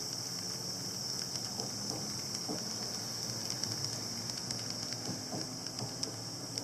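Recorded train running sound used as a model-railway sound effect: a steady low rumble with scattered light clicks, under a steady high-pitched hiss.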